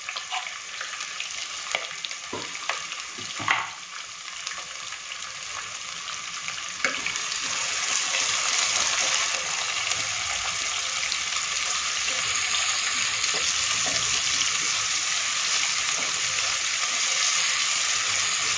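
Chopped onions sizzling in hot oil with peanuts, curry leaves and green chillies, stirred with a wooden spatula that knocks a few times against the pot in the first few seconds. The sizzle grows louder about seven seconds in and then holds steady.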